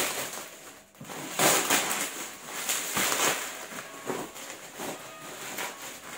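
Plastic bubble wrap rustling and crinkling as it is pulled off a cardboard box, in a series of uneven bursts.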